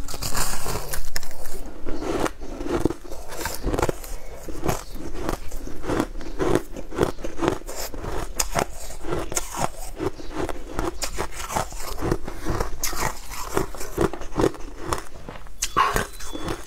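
Teeth biting into and chewing a chunk of crushed ice: a fast, irregular run of crisp crunches.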